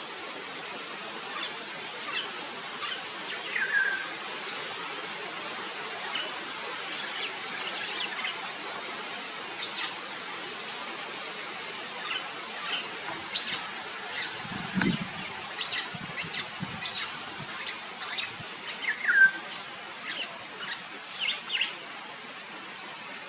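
Wild birds calling over a steady background hiss: many short high chirps, with a downward-slurred call twice, about four seconds in and near the end. A brief low rumble about halfway through.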